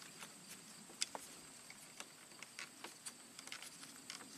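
Faint, scattered light clicks and ticks of gloved fingers handling the wires of a car's dashboard wiring harness and a diode lead wrapped around them, over a faint steady high-pitched hiss.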